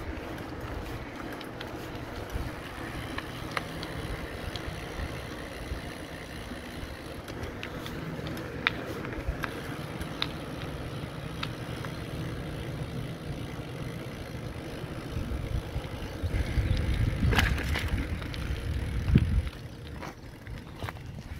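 Bicycle rolling along a paved street: a steady rumble of tyres and air with scattered light clicks and rattles. The rumble grows louder for about three seconds near the end, then drops back.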